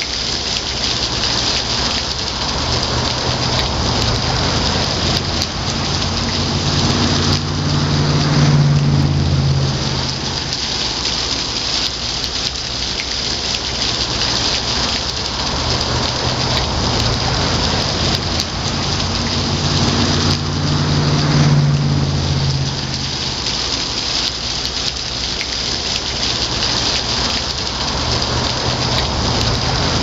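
Small waterfall splashing steadily into a stone pool. A low rumble swells and fades twice under it, peaking about 8 and 21 seconds in.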